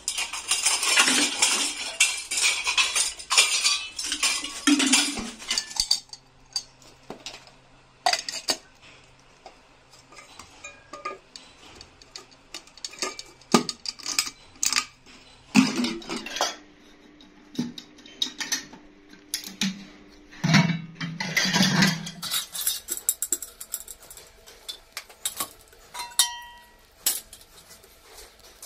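Clattering and knocking of hard black tractor air-filter housings being picked up, handled and set down among a pile of others. Dense crinkling and clatter for the first few seconds, as a plastic bag is handled, then scattered separate knocks and clinks.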